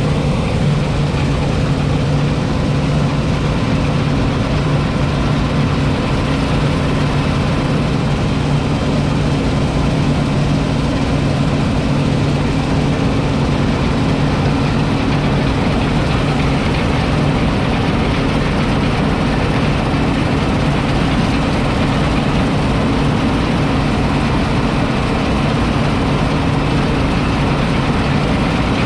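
John Deere 9780i CTS combine harvester's 8.1-litre six-cylinder diesel engine running steadily at an unchanging pitch.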